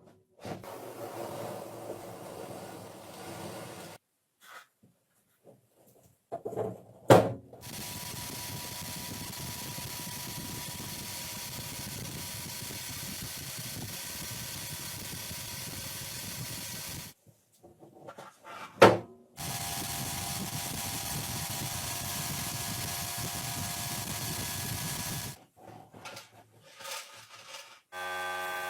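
A power tool running steadily in two long stretches of about ten and six seconds, with a sharp knock before each.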